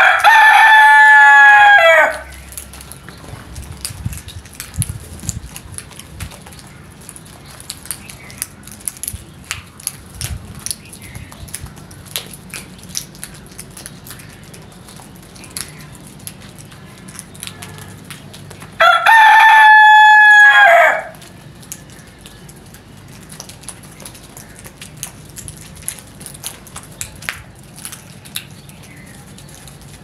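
Domestic rooster crowing loudly and close by, twice: once at the start and again about 19 seconds in, each crow lasting about two seconds. In between, the quiet clicks and taps of crows pecking grain off concrete.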